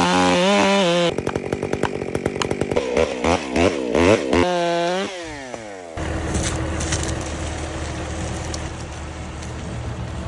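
Stihl 661 Magnum two-stroke chainsaw running at full throttle, then revving up and down unevenly for a few seconds before the revs fall away to idle. After about six seconds, a farm tractor's engine runs steadily as it skids the log.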